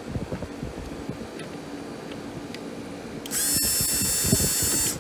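Electric drill driving a screw into the air conditioner's grill: a high, steady motor whine that starts suddenly about three seconds in and runs for about a second and a half, over a steady low hum.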